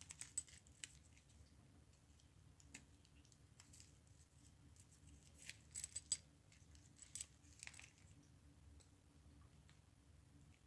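Faint, scattered clicks and light clinks of an Invicta watch's metal link bracelet and clasp being handled, a few small clicks at a time with quiet between.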